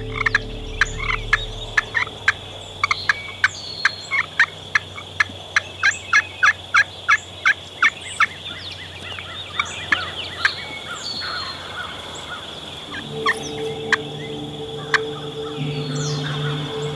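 Friction pot call scraped with a wooden striker, giving a long run of hen turkey yelps and cuts, about four sharp notes a second for the first eight seconds, then a few scattered notes. Songbirds chirp in the background, and a low steady drone comes in about thirteen seconds in.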